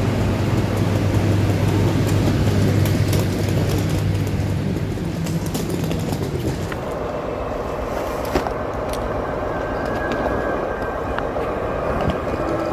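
ÖBB class 2016 (Siemens Hercules) diesel-electric locomotive and its train standing at a station platform, running at idle: a steady low hum that fades about halfway through, then steady higher-pitched whines, with scattered light clicks.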